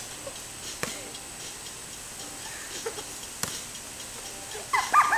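A tetherball being slapped back and forth by hand, giving sharp smacks about a second in and again after about three and a half seconds. Near the end a player lets out a brief high-pitched shout.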